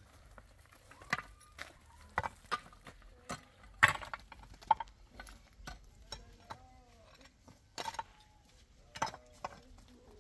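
A run of sharp clicks and knocks at irregular intervals, over a dozen, the loudest about four seconds in, with faint pitched sounds between them.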